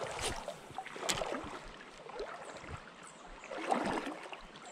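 Water sloshing and splashing around the legs of someone wading through a shallow river, in several uneven surges, the loudest shortly before the end.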